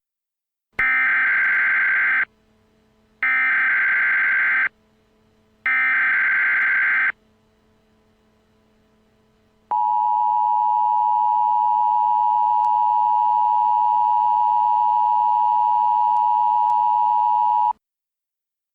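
Emergency Alert System tones: three short bursts of SAME header data, each about a second and a half long with a pause between, then the steady two-tone attention signal for about eight seconds, which cuts off abruptly. Together they mark the start of an emergency alert broadcast.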